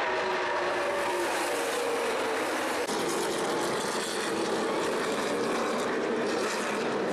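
Several stock cars' V8 racing engines running at speed, their pitch falling over the first couple of seconds as the pack passes. About three seconds in, the sound switches abruptly to a steadier, lower engine note from cars slowed on pit road.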